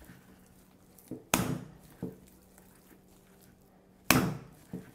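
Minced pork and prawn paste slammed by hand into a glass bowl: two loud slaps nearly three seconds apart, with a couple of softer knocks after each. The slamming works the meatball mixture until it turns sticky.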